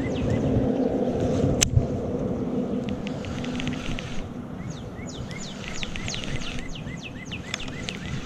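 Wind rumbling on the microphone, with a bird calling over and over in short, high, downward-sliding chirps, busiest in the second half. A single sharp click comes about a second and a half in.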